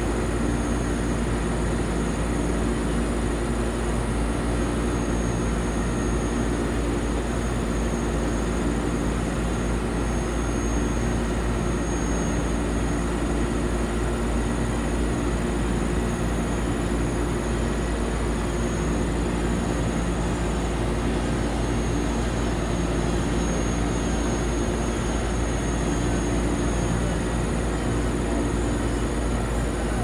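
Heavy rotator tow truck's diesel engine running steadily with a low drone, powering the hydraulic crane boom as it lifts a steel pillar.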